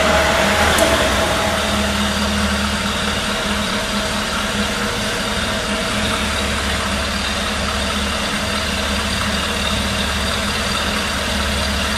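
Maximal LPG-fuelled counterbalance forklift's engine running steadily, an even low hum with faint steady whining tones above it.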